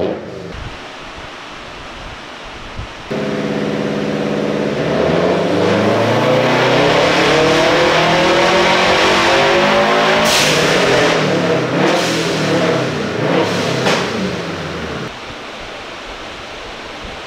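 2015 Subaru STI's turbocharged 2.5-litre flat-four on a dyno pull: about three seconds in it jumps to a steady higher speed, then revs smoothly up under load for about five seconds. When the throttle closes, the blow-off valve vents in a loud burst, and the revs fall away with a couple more venting bursts before the engine settles back to a lower steady run.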